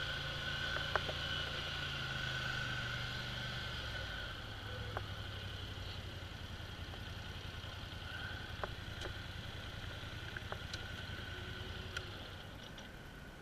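Polaris Sportsman ATV engine running at low speed, its low hum dropping a little about four seconds in and then holding steady, with a few faint ticks.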